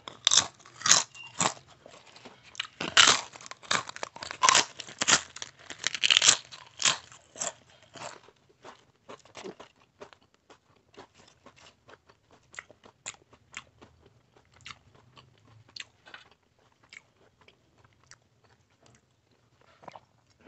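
Crisp fried papad being bitten and chewed close to the microphone: a run of loud, sharp crunches for the first eight seconds or so, then fainter, scattered chewing clicks and smacks.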